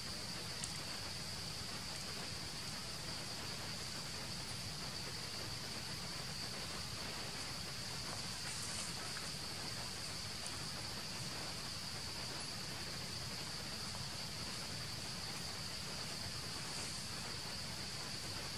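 Steady high-pitched drone of insects chirring in the trees, over a faint outdoor hiss, with a few faint ticks.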